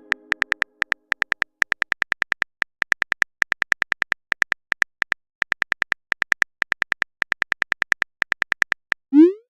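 Texting-app sound effects: a long series of short, high, evenly spaced typing clicks in short runs, then one quick rising swoop about nine seconds in, the tone of a message being sent.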